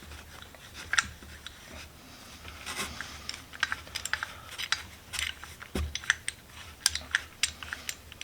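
Irregular light clicks and ticks of small metal parts being handled as a mini bench vise is taken apart by hand.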